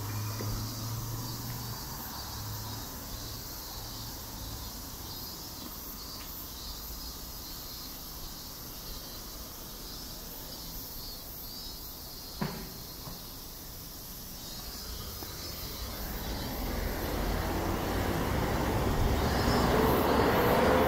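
Street traffic noise with a low engine hum at first, a single sharp knock about halfway through, then a vehicle engine growing steadily louder toward the end.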